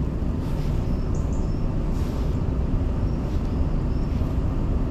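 Steady low background rumble with no distinct events, and a couple of faint, high, short chirps about a second in and again past three seconds.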